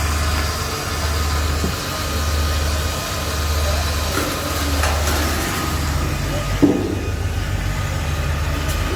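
Heavy construction machinery engine running steadily, a low hum that swells and fades about once a second. A single knock sounds about two-thirds of the way through.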